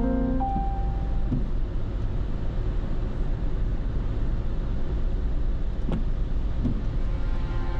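A car driving along a road, with a steady low rumble of tyres and engine and a few faint ticks.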